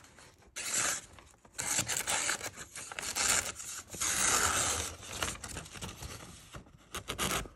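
Kitchen knife blade slicing through a sheet of paper in a series of rasping cuts, the loudest about four seconds in. It is a paper test of an edge just honed on a diamond-and-ceramic rod, and the edge is still a little rough.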